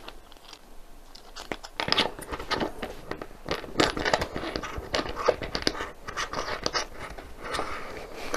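Hands fitting plastic parts of an overhead phone-mount arm together: irregular clicks and knocks with some rustling.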